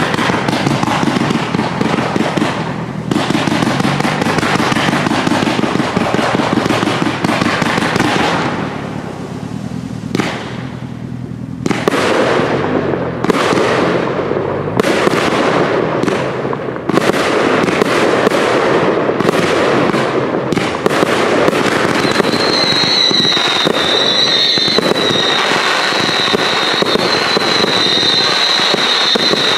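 Cake fireworks firing a dense, rapid stream of bangs from their shot tubes. The barrage eases off for a few seconds about a third of the way in, then builds up again. Over the last seven seconds or so a high, wavering whistling tone runs through it.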